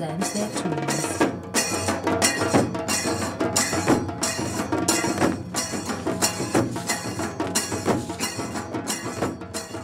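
Tassa drums beaten with sticks in a fast, driving rhythm, with sharp strong strikes about twice a second over a dense roll of lighter beats.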